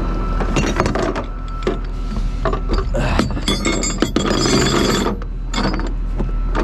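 Steel tow chain and hooks clinking and clanking against each other and the ribbed aluminium flatbed deck as they are handled and dragged into place, in irregular knocks with a stretch of scraping, over a steady low drone.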